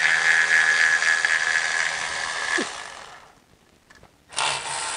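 A small power tool's motor running while loosening a bolt: a steady run of about two and a half seconds that winds down, then a second run starting about four seconds in.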